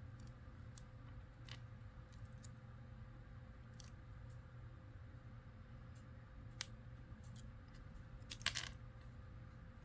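Small plastic Lego pieces clicking and tapping as they are handled and pressed into place: a few faint scattered clicks, then a louder quick cluster of clicks near the end, over a faint steady hum.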